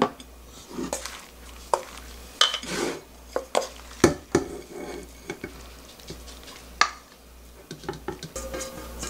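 Wooden spoon scraping and knocking against a stainless steel mixing bowl while seasoned garlic-chive kimchi is spooned into a glass container: a string of irregular clinks and knocks, the loudest about 4 and 7 seconds in.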